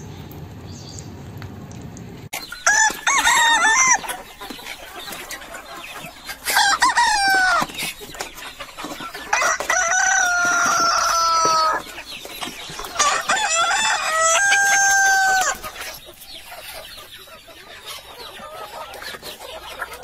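Roosters crowing: four separate crows, each one to two and a half seconds long, the later ones holding a long steady note at the end.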